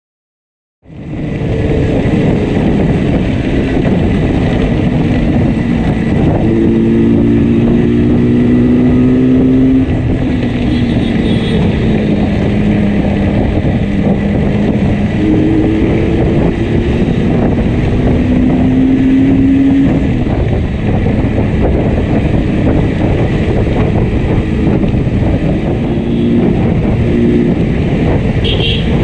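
Yamaha RD350 two-stroke parallel-twin motorcycle running on the road with one cylinder misfiring heavily. The engine comes in suddenly about a second in, and its pitch rises and falls several times as the rider works the throttle.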